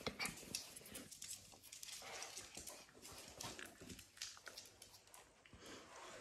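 Two small dogs play-fighting: faint scuffling with many short scratches and clicks of paws and claws on the floor.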